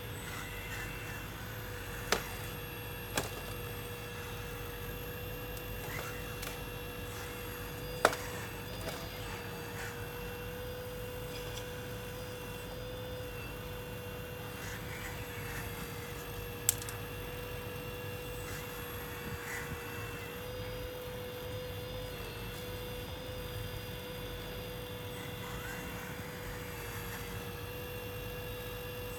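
Steady whine of a 1/14-scale RC hydraulic excavator's pump running as the machine digs and loads, with a few sharp knocks, the loudest about eight seconds in.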